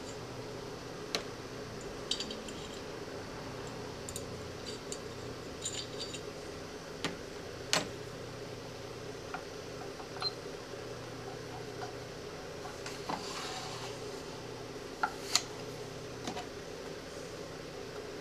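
Scattered light metallic clicks and clinks of a pistol and its small parts being handled in a rotating pistol vise stand, about a dozen over the stretch, over a steady low hum.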